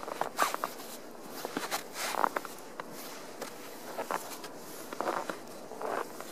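Snow brush sweeping packed snow off a car's windshield and hood: a series of irregular swishing scrapes with small crunches and clicks.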